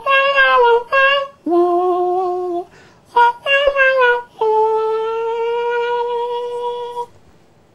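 A man's voice imitating a harmonica, humming and blowing through hands cupped over his mouth. A string of notes, two of them bending down in pitch, ends on one long held note of over two seconds.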